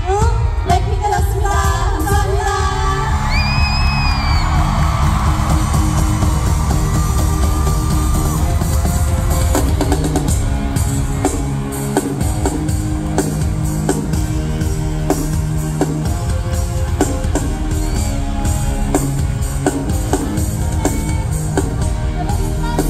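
Loud live K-pop concert music with a singing voice and shouts from the crowd.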